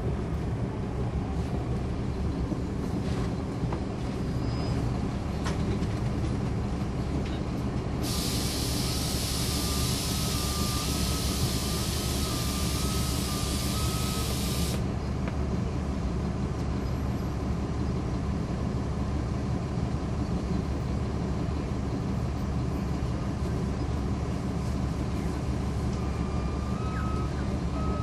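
Caterpillar C13 ACERT diesel of a NABI 40-SFW transit bus, heard from on board, running steadily. About eight seconds in, a loud hiss of escaping air lasts roughly seven seconds, with short high beeps over it. A few more beeps come near the end.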